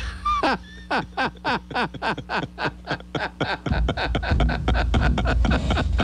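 Hearty male laughter, a rapid run of 'ha' pulses about four to five a second, getting louder about two-thirds of the way through.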